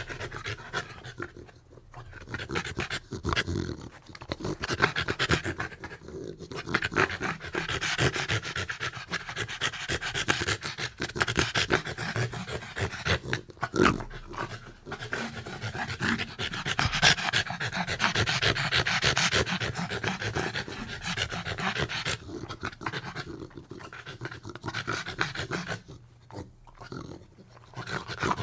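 Pit bull terrier panting heavily in fast, labored breaths, with a few short pauses.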